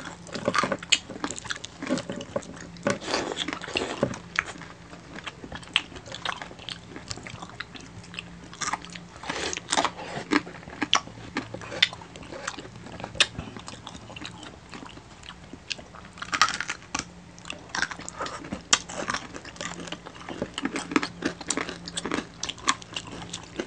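People eating crispy pata (deep-fried pork knuckle) by hand: irregular crisp crunches of the fried skin and wet chewing, one bite after another.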